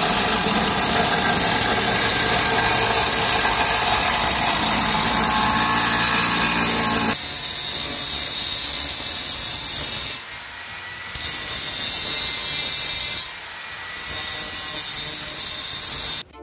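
Electric angle grinder cutting white ceramic tile: a steady, high-pitched grinding. It eases off briefly twice, about ten and thirteen seconds in, and cuts off suddenly near the end.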